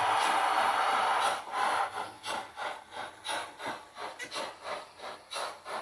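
Märklin BR 85 model steam locomotive with a five-pole motor running on three-rail model track: a steady running noise of motor and wheels for about the first second, then a rhythmic rasping pulse about three times a second as it moves away.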